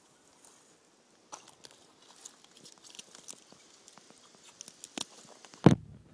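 Crackling and rustling of a mountain-bike tire and tube being worked by hand around the rim on dry wood chips, with scattered small clicks. Near the end comes a single sharp thump, the loudest sound.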